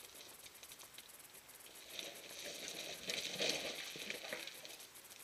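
Faint crunching and clattering of loose rock and gravel under mountain-bike tyres, louder for a couple of seconds in the middle.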